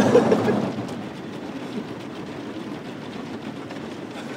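Automatic car wash working over the car, heard from inside the cabin: cloth brushes scrubbing across the wet window glass with water spraying. It is loudest for the first moment, then settles to a lower steady rumble.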